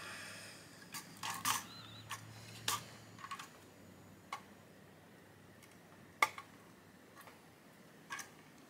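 Scattered quiet, sharp clicks of diagonal cutters snipping the leads of a freshly soldered mini fuse on a circuit board, and of the board being handled on a work mat, with one sharper click about six seconds in.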